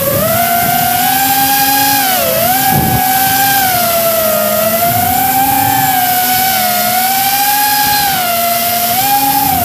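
Radio-controlled model aircraft's motor and propeller whining steadily close to the microphone, its pitch rising and falling with the throttle and dipping briefly about two seconds in, over a rush of wind.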